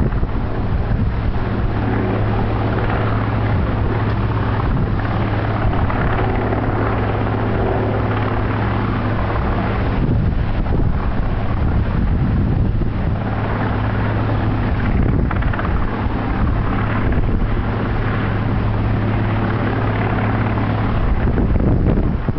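Helicopter running steadily with a low, even drone, mixed with wind noise on the microphone; the drone weakens near the end.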